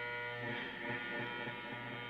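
Live band music: a held chord with a low sustained note that stops about half a second in, followed by shorter plucked notes, likely electric guitar.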